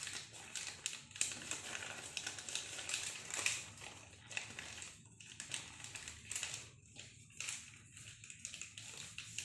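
A sheet of paper being folded over and over by hand, its creases pressed down: irregular rustling and crinkling strokes.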